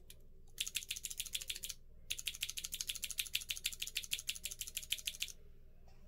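Cherry MX Blue clicky switch in a single-key switch tester being pressed over and over, giving rapid sharp clicks, about eight or nine a second. There are two runs: a short burst of about a second, a brief pause, then about three seconds more.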